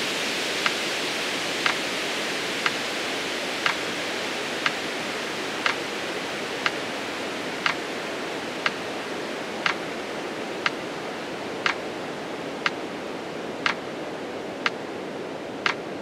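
Metronome ticking once a second, every other tick a little louder, counting out a slow exhale, over a steady hiss that slowly fades.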